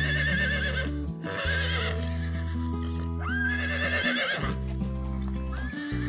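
Horse whinnying again and again, each call a high, shaky, wavering neigh lasting about a second. Background music with held bass notes plays underneath.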